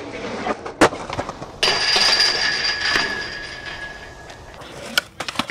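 Skateboard trucks grinding a metal handrail: a sharp clack about a second in, then a scraping, squealing grind lasting about two seconds that fades away, and a couple of sharp clacks near the end.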